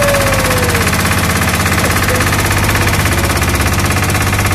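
Small boat's orange single-cylinder air-cooled inboard engine running hard under way, a fast, steady train of pulses.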